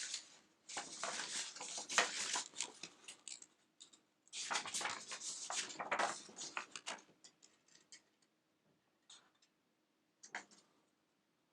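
Paper and card rustling and scraping as a folded poster and packaging are handled, in two stretches of a few seconds each, followed by a couple of isolated light clicks.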